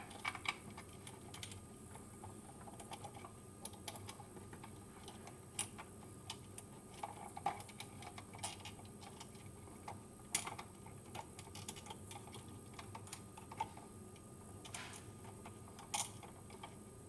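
Faint, irregular clicks and taps of small plastic outlet spacer shims being handled and fitted onto an electrical receptacle's mounting screws, with a few sharper clicks among them.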